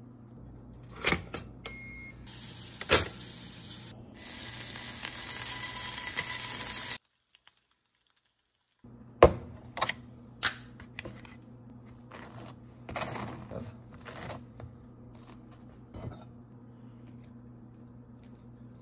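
Kitchen food-prep handling sounds: scattered sharp clicks and knocks, a loud steady hiss for about three seconds that cuts off suddenly, then after a moment of silence more knocks and the rustle of aluminium foil being handled, over a faint steady hum.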